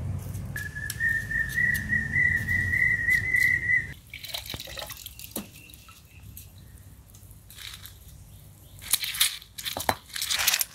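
A stone roller rumbles low on an ammi (stone grinding slab) while someone whistles one long, steady note for about three seconds. Near the end, the stone roller crushes dried red chillies on the slab in loud, repeated crunching scrapes.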